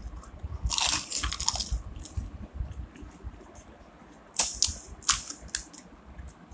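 Crisp phuchka (pani puri) shells crunching and cracking as they are poked open by hand and eaten, in two clusters of short crackles, about a second in and again a little past four seconds.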